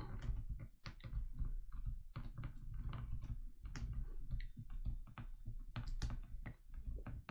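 Stylus tip tapping and clicking on a tablet or pen-display screen as words are handwritten: a quick, irregular run of light clicks.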